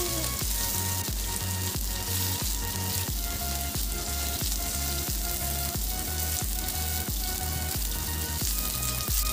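Oil sizzling steadily around pumpkin-leaf-wrapped dried-fish parcels shallow-frying on a flat tawa. Background music with a steady beat plays underneath.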